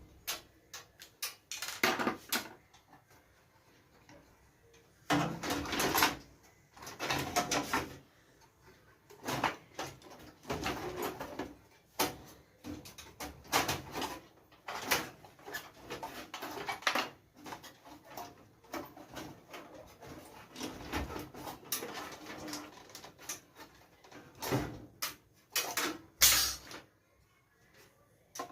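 Irregular clicks, knocks and scraping clatter from a desktop PC being taken apart by hand, coming in bunches with short quiet gaps.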